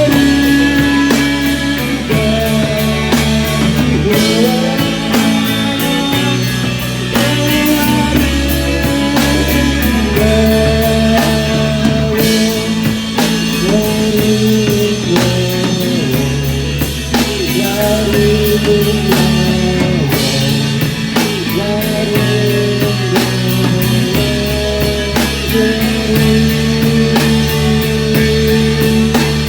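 Rock band playing an instrumental passage: a gliding guitar melody over bass and a drum kit keeping a steady beat.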